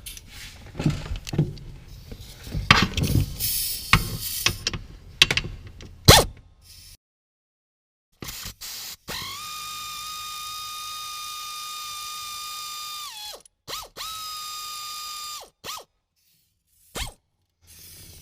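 Pneumatic air ratchet running a seat-mounting bolt: a steady high whine held for about four seconds that drops in pitch as it stops, then a second shorter run. Before it come scattered clicks and knocks of the tool being handled.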